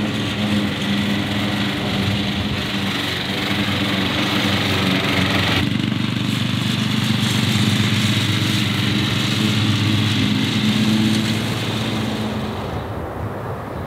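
Ride-on lawn mower engine running steadily under load while it cuts grass. The engine sound shifts about halfway through and drops away about a second before the end.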